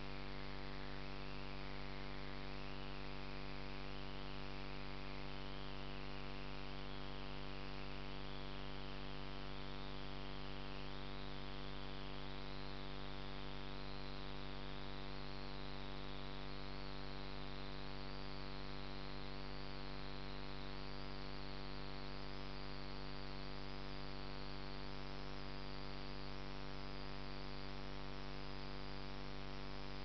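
Steady electrical hum with a constant hiss, and a faint wavering whine that slowly climbs in pitch.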